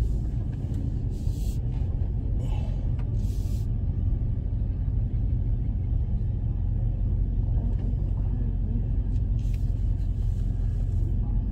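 Car engine idling with a steady low rumble, heard from inside the cabin. A few brief hisses come and go over it.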